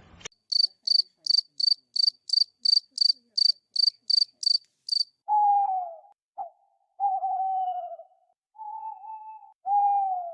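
Cricket chirping, evenly spaced chirps about three a second. After about five seconds it gives way to four or five longer whistled calls, each sliding down a little in pitch, from an animal the material does not identify.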